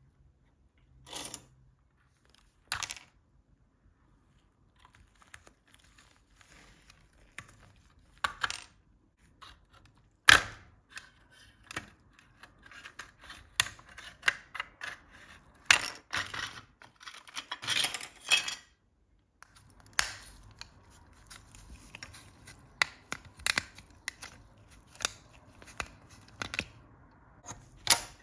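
Irregular clicks, knocks and short scrapes of hand work, with tools and parts being handled and set down; the loudest knock comes about ten seconds in, with denser rattling and scraping around sixteen to eighteen seconds.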